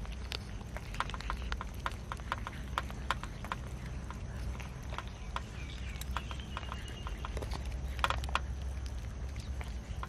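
Many cats eating cooked rice together: quick, irregular wet chewing and lip-smacking clicks, with a louder cluster about eight seconds in, over a low steady rumble.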